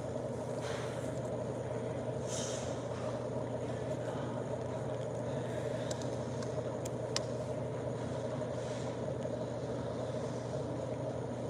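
Steady low hum with a faint hiss, unchanging throughout, with two faint ticks about six and seven seconds in.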